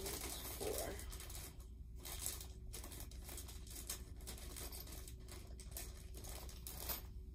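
Small clear plastic bag of furniture-assembly parts crinkling and rustling in the hands, on and off.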